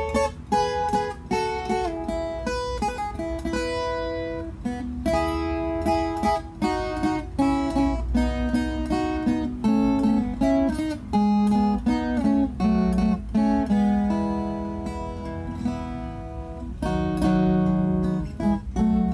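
Instrumental music played on a viola caipira, the Brazilian ten-string country guitar: a quick melody of plucked notes that ring and die away, over lower bass notes.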